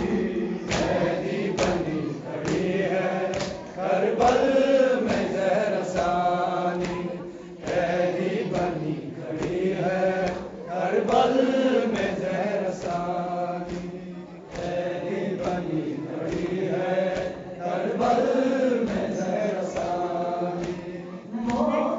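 Urdu nauha chanted by a group of voices, a lead reciter with others joining, over a steady beat of chest-beating (matam) slaps.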